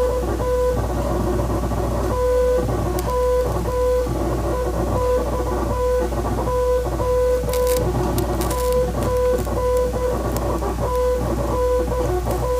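Morse code sent as a beeping tone pitched around 500 Hz, keyed in a steady string of short and long beeps. It plays over a loud, churning background noise and a constant low hum.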